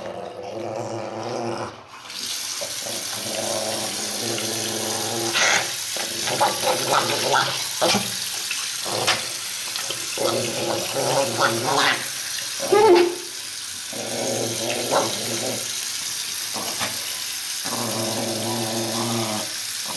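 Tap water running into a bathroom sink, starting about two seconds in, while a small dog growls steadily as it is held and its ear is washed.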